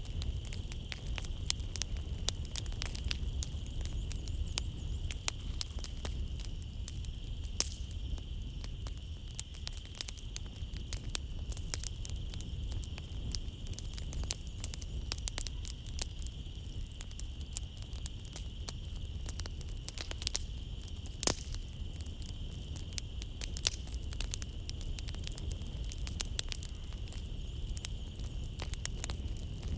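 Wood fire crackling in a fireplace, with many sharp irregular pops and snaps and a low rumble, over a steady high-pitched chirring of night insects.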